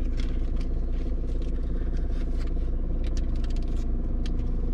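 A steady low machine hum with scattered faint crunching clicks of someone chewing a taco.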